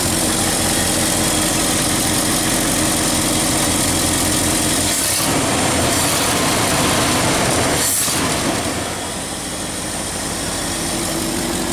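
1969 Ford F-250's carburetted engine running steadily at about 600–650 rpm, humming smoothly on a newly fitted PCV valve with its vacuum hoses tightened. The sound shifts briefly about five seconds in and again about eight seconds in.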